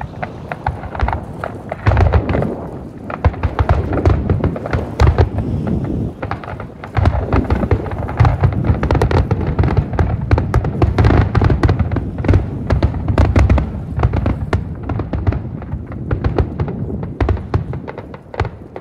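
Aerial fireworks display: a dense barrage of shell bursts, sharp bangs and deep booms mixed with crackle, thinning out near the end.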